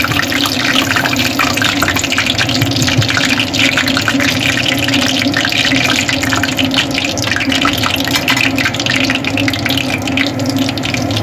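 Oil sizzling and crackling steadily in a pan as frozen chicken rolls fry.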